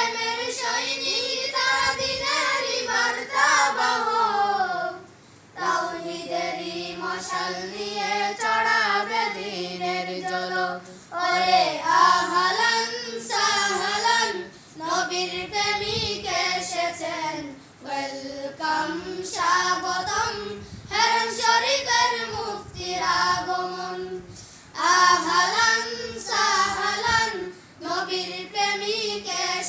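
A group of boys singing a devotional song together in unison, with no instruments, phrase by phrase with short pauses for breath: students rehearsing.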